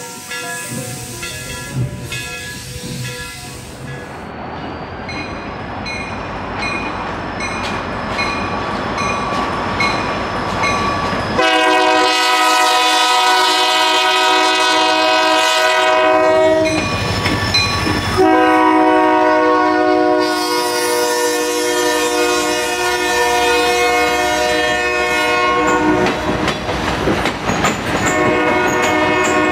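Music with a steady beat at first. Then a train approaches and passes with a growing rumble and wheel clatter, while a diesel locomotive's multi-note air horn sounds three long blasts with short breaks between them.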